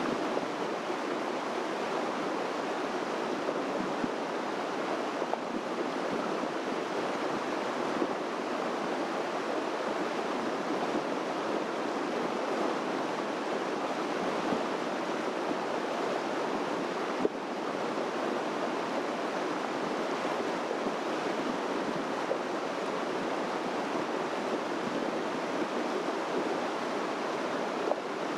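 Steady rush of flowing water, even and unbroken.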